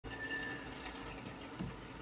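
Light water lapping around a plastic kayak on calm water, with a soft thump about one and a half seconds in.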